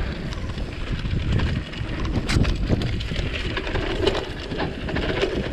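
Mountain bike rattling down a rough dirt trail: a steady low rumble of tyres over the ground with many quick clicks and knocks from the bike over bumps, and grass and brambles brushing against the bike and rider.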